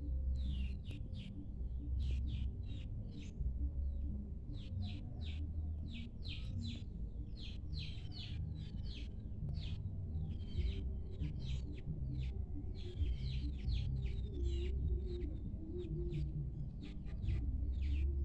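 Small birds chirping, many short quick calls one after another, over a steady low rumble.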